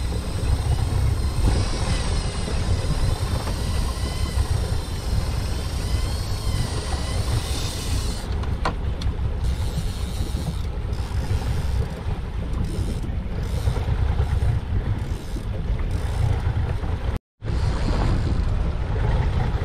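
A boat's engine runs steadily under way while trolling, with heavy wind rumble on the microphone. A faint wavering high whistle comes and goes over the first several seconds, and the sound cuts out for a moment near the end.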